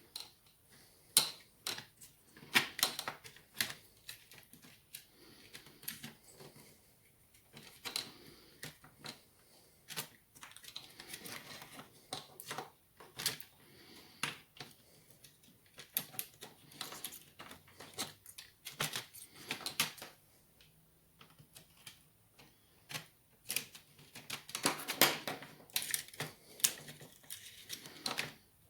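Irregular clicks, taps and clacks of a screwdriver and small metal and plastic parts being handled while a Lenovo Legion Y520 laptop is taken apart, as its internal metal plate is removed.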